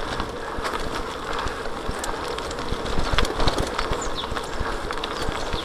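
Bicycle rolling over a rough dirt singletrack, heard from a handlebar-mounted camera: tyre rumble with a constant clatter of small knocks and rattles as the bike jolts over the bumps.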